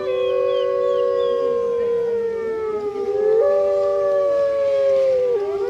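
Several wolves howling together in chorus, long overlapping held notes at different pitches. One voice jumps up in pitch about three and a half seconds in, and another drops near the end.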